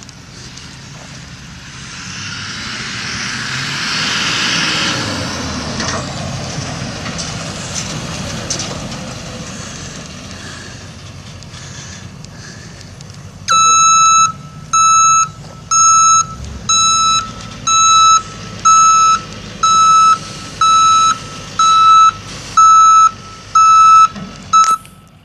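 A Chevrolet C4500 flatbed truck with a 6.6L V8 diesel drives past; its running and tyre noise swells to a peak about four seconds in, then eases off. About halfway through, its backup alarm starts beeping, a loud high beep about once a second, showing the truck is reversing. The beeping stops just before the end.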